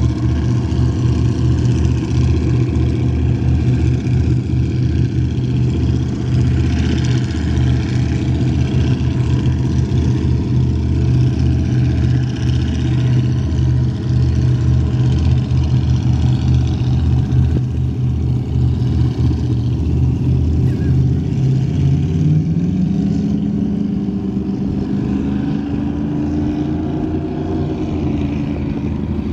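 Cigarette-style offshore powerboat's engines running at speed with a deep, pulsing rumble. About three quarters of the way through, the engine pitch rises and holds higher.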